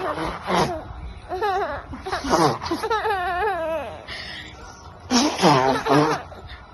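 Baby giggling and squealing in short bursts with a wavering pitch, laughing as she is tickled at the hips; the loudest bursts come near the end.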